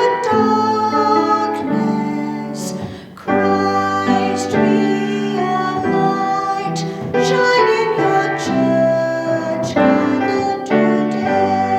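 Piano music playing slow, sustained chords, with a brief dip in volume about three seconds in.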